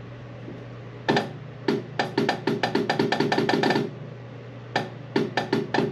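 Electric horn of a 1982 Fiat 124 Spider, run alone on a jump pack, sounding in a string of short, choppy toots rather than one steady blast. The toots come very fast in the middle and again near the end.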